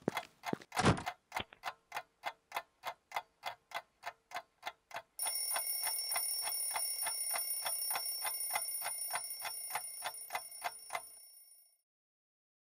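A single thump, then a clock ticking evenly at about four ticks a second. About five seconds in, an alarm clock starts ringing over the ticking with a steady high ring, and it fades out shortly before the end.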